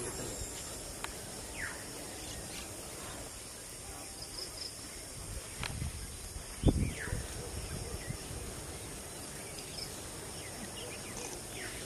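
Outdoor ambience with birds giving short, scattered chirps over a steady high hiss, and one heavy low thump about two-thirds of the way through.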